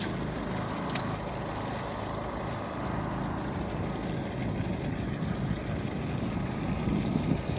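Engine of a gold dredge's water pump running steadily, a low, even hum; it is running well.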